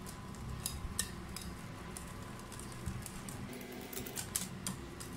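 Wire whisk beating thick cake batter in a glass bowl, with irregular light clicks as the wires knock against the glass.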